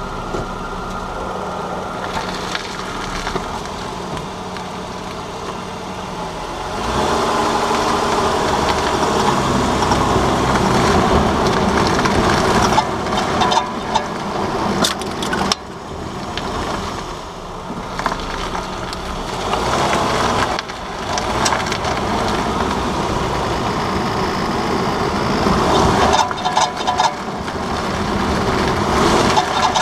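2009 Nissan Murano running, then driving slowly, with intermittent sharp rattling clicks from the front left wheel, the kind of rattle that comes on during hard right turns at 10–15 mph. The owner suspects the splash guard between the steering knuckle and wheel hub.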